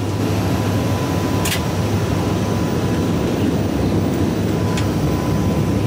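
Gulfstream G200 business jet cabin noise in flight: a steady rush of airflow with a low engine hum and a faint steady high tone. Two light clicks, about a second and a half in and near the end.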